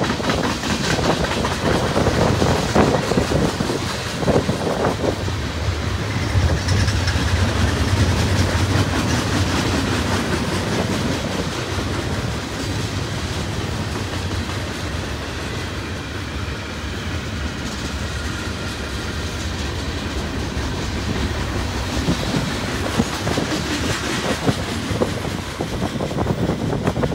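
Freight cars of a long mixed manifest train (tank cars, autoracks, boxcars) rolling past close by. Steel wheels make a steady rolling rumble, with repeated clacks as they cross the rail joints.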